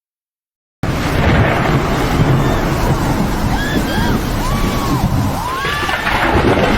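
Loud rushing roar of floodwater with wind buffeting the microphone, cutting in suddenly about a second in. Several short rising-and-falling cries sound over it in the second half.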